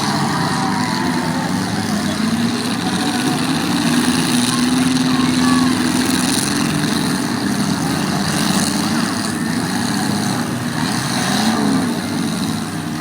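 Several demolition derby car engines running together in a dense, loud din, their pitch rising and falling as they rev.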